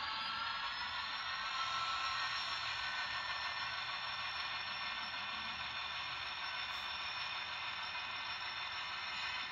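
Model diesel locomotive running along the layout track: a steady high whine with a hiss, rising in pitch as it gets moving at the start and then holding steady.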